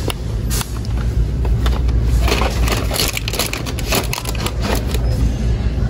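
Plastic blister packaging of a toy sailboat set crinkling and crackling as it is handled, in many irregular crackles over a low steady rumble.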